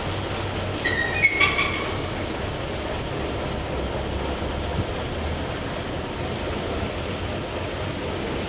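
Scania L141's V8 diesel running steadily as the truck drives slowly away, a continuous low engine sound. About a second in, a short high-pitched squeal with a click cuts through.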